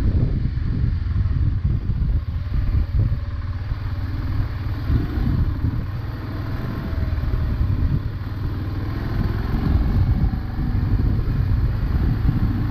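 BMW GS650 adventure motorcycle being ridden off-road: the engine runs steadily with slight rises and falls in pitch, under a heavy, uneven low rumble of wind on the microphone.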